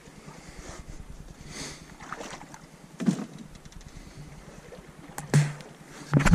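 Paddle strokes moving an Ascend H12 hunting kayak through calm water, with a few knocks of the paddle against the hull: one about three seconds in, and louder ones after five seconds and near the end.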